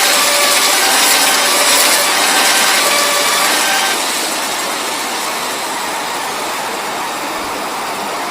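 Railway level-crossing warning siren sounding in a repeating pattern of short tones over the loud, steady rush of a passing train. The siren cuts off about four seconds in, while the train noise carries on and slowly fades.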